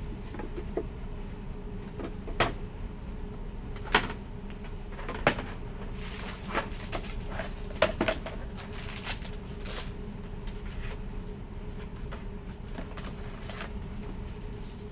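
Hollow plastic storage bins knocking and clattering as they are handled and stacked into a shopping cart: a handful of sharp knocks with some rattling in between, over a steady hum.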